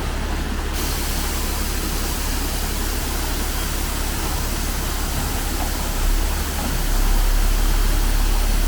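Heavy dump truck engine running under a broad hiss, its low rumble getting louder about seven seconds in.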